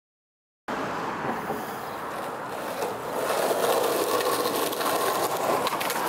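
Skateboard wheels rolling over rough concrete: a steady gritty rolling noise that grows louder about halfway through, with a few faint clicks. It comes in after a moment of dead silence at the start.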